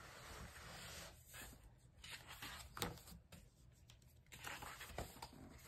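Faint rustling of thick paper pages of a colouring book being turned by hand, with a brief click about three seconds in.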